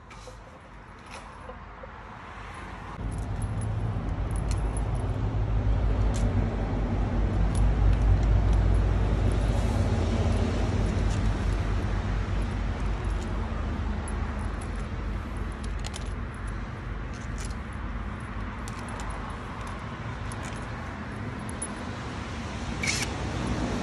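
A low engine rumble starts about three seconds in, is loudest around eight seconds, then eases but keeps going. Over it come scattered light metallic clinks of engine parts and tools being handled on a bare cylinder head.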